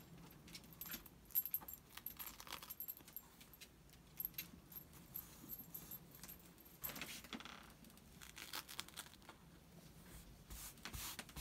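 Faint rustling and crinkling of fusible appliqué pieces and a pressing sheet being handled and smoothed by hand, broken by many small clicks and ticks.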